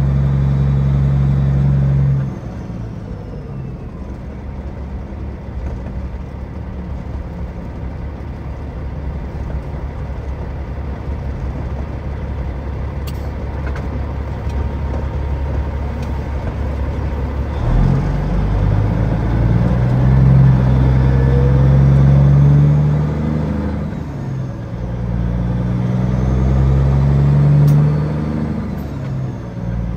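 Peterbilt 379 semi truck's diesel engine running steadily, then easing off about two seconds in. From a little past halfway the engine note rises twice under acceleration, with a brief drop between them, as on a gear change.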